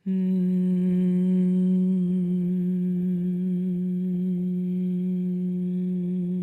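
A voice humming with closed lips on one steady, comfortable note, a long even hum on a single exhaled breath as a calming breath practice. It starts abruptly and holds the same pitch and loudness throughout.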